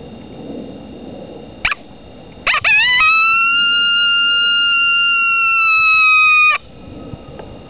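Cow horn mini howler, a mouth-blown reed coyote howler call reeded for a basic adult female voice: a short squeak, then a brief rising note, then one long, loud, steady howl of about three and a half seconds that drops slightly in pitch at the end and cuts off sharply.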